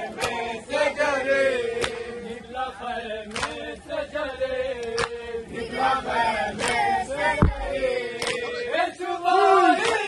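A crowd of men chanting a Muharram mourning chant in unison, kept in time by a sharp beat about every second and a half. There is one heavy thump about two thirds of the way in, and louder shouting near the end.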